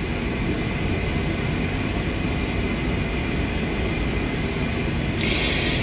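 Steady background noise, a hiss with a low rumble underneath. Near the end comes a short, louder hiss of a breath drawn in.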